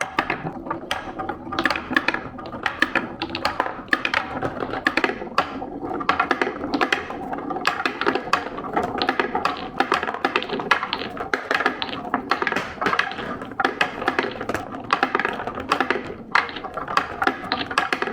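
Many marbles rolling and clattering down a marble run track, a dense, irregular stream of clicks and clacks.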